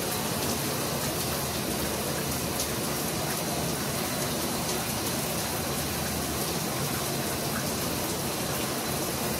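Shower running, water spraying down steadily.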